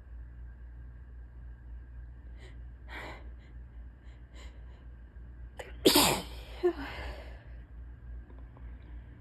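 A person's allergy sneeze: a few short hitching catches of breath during the build-up, then one big, loud sneeze about six seconds in, trailing off over the next second.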